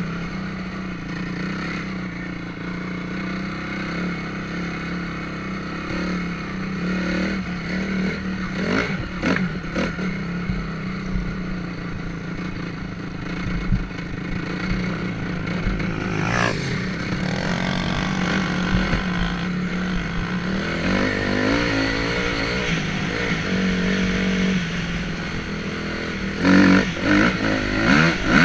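Honda CRF250R dirt bike's four-stroke single-cylinder engine running while being ridden, the pitch rising and falling with the throttle, with a louder burst of revving near the end.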